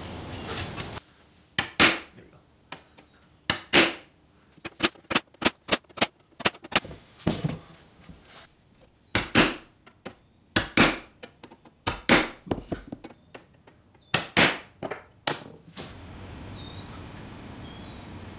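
Hammer tapping a steel punch held against the teeth of an old Japanese maebiki (whaleback) saw blade, working along the teeth one at a time: sharp taps, some single and some in quick runs, stopping abruptly about 16 seconds in. A steady background hiss remains after that.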